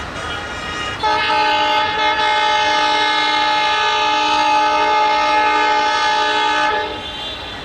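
Air horn of an ALCo WDM 3A diesel locomotive sounding one long blast of several tones at once. It starts about a second in, dips briefly about two seconds in, and cuts off about a second before the end.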